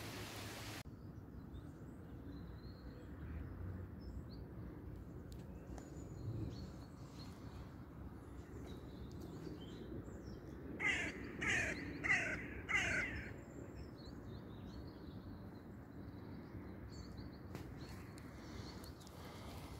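A crow caws four times in quick succession near the middle, over a steady low outdoor background hum.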